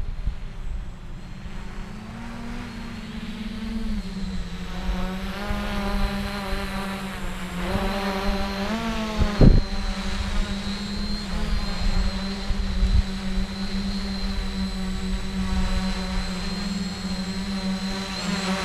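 Quadcopter's electric motors and propellers buzzing steadily as it flies in and hovers low, slowly getting louder as it nears. The pitch shifts and glides a few times around the middle as the throttle changes, with a single thump about halfway through.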